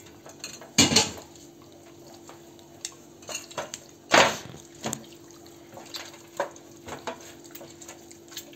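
Hands rubbing an oily spice marinade into a whole raw chicken on a metal baking tray: soft wet handling noises and small clicks, with two louder clatters of the bird and hands against the tray, about a second in and about four seconds in.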